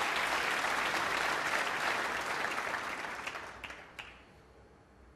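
Snooker audience applauding, a dense patter of clapping that dies away about four seconds in.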